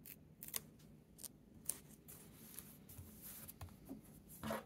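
Soft ticks and paper rustling as a script sticker is pressed onto a planner page and hands smooth the open pages flat, with a louder rustle near the end.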